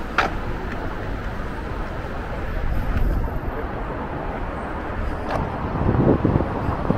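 Street traffic ambience: a steady hum of road noise from passing vehicles, with a couple of sharp clicks and a few low thuds near the end.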